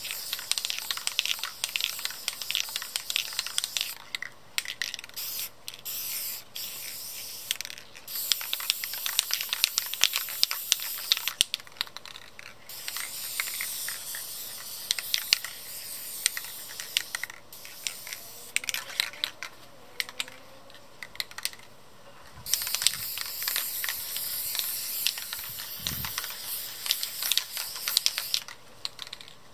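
Rust-Oleum American Accents aerosol spray paint can spraying in repeated passes, a crackly hiss that stops and starts several times.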